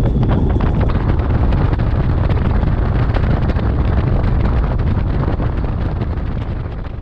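Heavy wind rushing and buffeting over the microphone of a bass boat under way on open water, easing off near the end.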